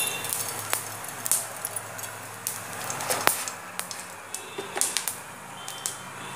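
Cumin seeds spluttering in hot oil in a frying pan: irregular sharp pops and crackles over a faint sizzle.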